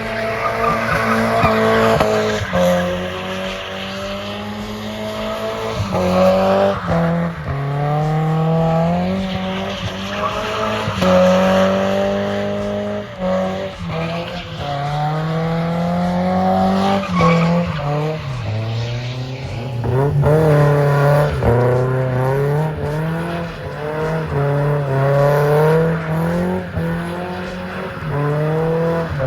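BMW E36 318i four-cylinder engine revving hard in repeated pulls, pitch climbing and dropping every few seconds, with tyres squealing as the car is slid sideways in a drift.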